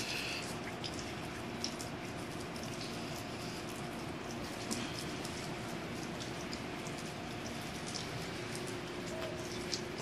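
Water drops pattering steadily onto slushy, melting snow on pavement, with scattered small drips and a faint steady hum underneath.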